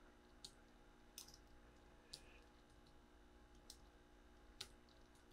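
Near silence with about five faint single clicks of a computer keyboard and mouse, a second or so apart, over a faint steady room hum.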